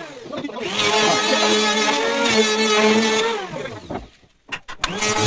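An electric power tool's motor runs at a steady pitch and winds down, starts up again about a second in, runs for about two seconds and winds down again. A few sharp clicks follow, then it starts up once more near the end.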